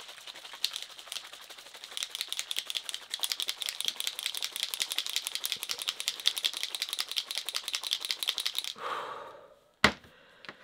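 Small shimmer spray bottles shaken hard, one in each hand, rattling in a fast, steady clatter of clicks that grows denser about two seconds in and stops shortly before the end. Near the end there is a single sharp knock as a bottle is set down on the table.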